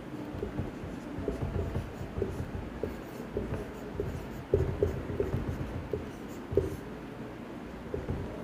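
Marker pen writing on a whiteboard: irregular short squeaks and scratches as each stroke is drawn, the loudest about four and a half and six and a half seconds in.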